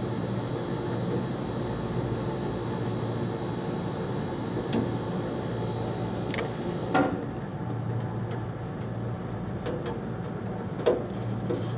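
Steady low machine hum, with a few sharp clicks and knocks from tools and parts being handled.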